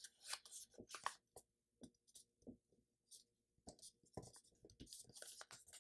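Faint rustling and soft scattered ticks of a sheet of letter-size paper being handled, folded and creased flat by hand.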